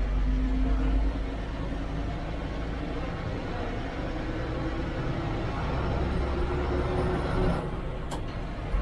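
A TNSTC bus's diesel engine running with road noise, heard from inside the driver's cab. The engine note rises slowly as the bus picks up speed. A single sharp click comes near the end.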